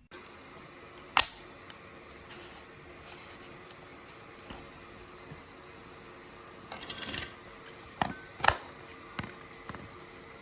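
Handling noises: a few sharp clicks and knocks, and a short rustle a little past the middle, over faint steady room tone.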